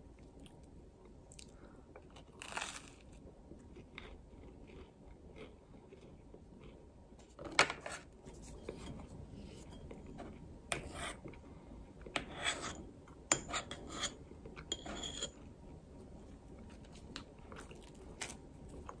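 Metal butter knife scraping butter across crisp toasted bread and tapping against a small ceramic dish, with handling of the toast: a scatter of short scrapes and clicks, the loudest about halfway through.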